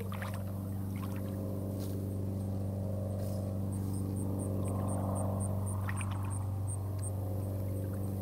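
Steady low machine hum with evenly spaced overtones, swelling a little about halfway through. A faint run of rapid high chirps, about four a second, comes through in the middle.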